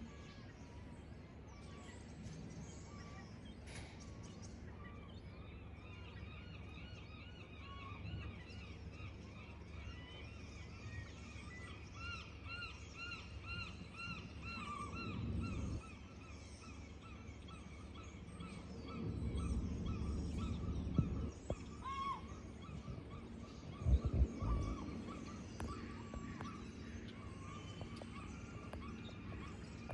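Waterfront birds calling: long runs of quick, repeated arching calls, several a second, over a low background hum. Two low rumbles in the second half are the loudest sounds.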